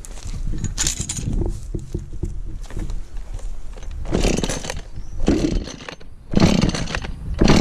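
Husqvarna 435 two-stroke chainsaw being pull-started: a few handling clicks, then surges from the pulls about a second apart from around four seconds in.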